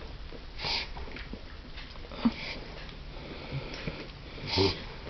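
Dog reverse sneezing: sharp, noisy inhalations through the nose, three main ones about two seconds apart with fainter ones between, the loudest near the end.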